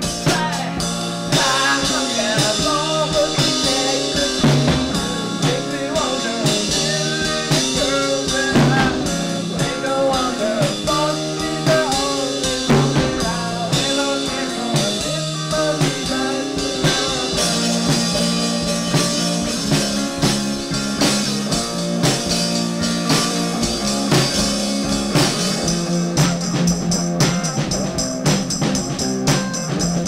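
Folk-rock band playing: guitars and drum kit keeping a steady beat under a bending lead melody line, with brighter cymbal or tambourine shimmer coming in near the end.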